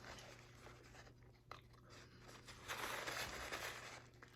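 Close-up eating sounds: chewing and tearing into a chicken wing, with a louder stretch about three seconds in.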